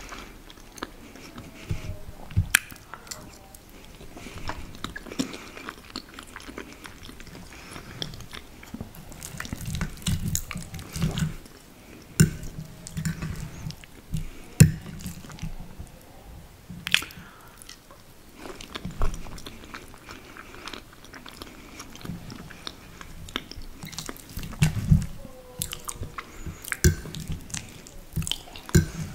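Close-miked chewing and wet mouth sounds of eating soft lasagna, with many short sharp clicks and now and then the scrape and clink of a metal fork cutting through the lasagna on the plate.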